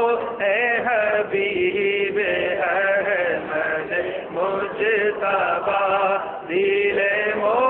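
A man chanting devotional Urdu verse (a naat) unaccompanied, in a melodic line of long, wavering, drawn-out notes.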